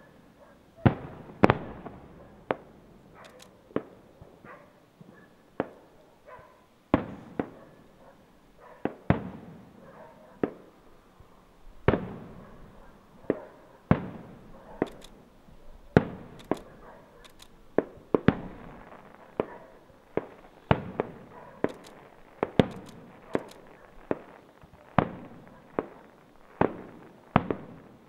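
Aerial firework shells bursting in an irregular string of sharp bangs, about one a second, each trailing off in a short echo.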